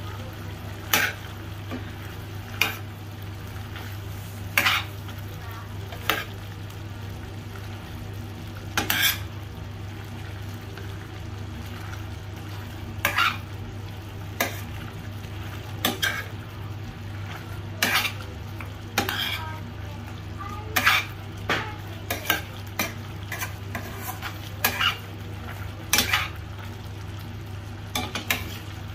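A metal spoon stirring chicken in a stainless steel pan, scraping and knocking against the pan at irregular intervals, about every second or two. Underneath are the sizzle of the simmering pan and a steady low hum.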